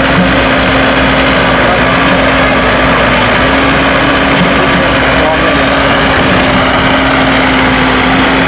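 Kobelco SK045 mini excavator's diesel engine running at a steady speed, a constant drone that holds one pitch.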